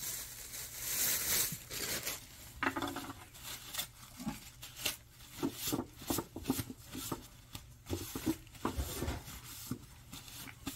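A cat chewing and tearing at a piece of raw fish: a run of short, irregular wet clicks and crunches.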